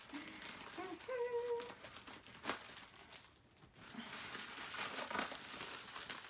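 Shipping package being cut and pulled open, its plastic and bubble-wrap packaging crinkling and rustling irregularly, busier in the second half. A faint voice murmurs briefly near the start.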